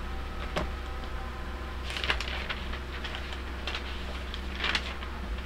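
Steady low electrical hum, with a click about half a second in and two short rustling scuffs, about two seconds in and near the end, from a seated person shifting and reaching to one side.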